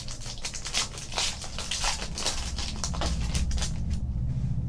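Foil wrapper of a trading-card pack crinkling and tearing as it is opened by hand: a rapid run of sharp crackles that stops about four seconds in.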